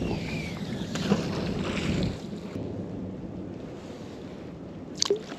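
A magnet-fishing magnet thrown into the river on its rope: splashing and rushing water for about two seconds, then quieter lapping water and wind on the microphone, with a short knock near the end.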